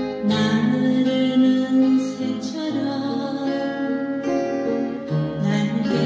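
Slow, gentle music played on an upright piano, with sustained chords changing every second or so.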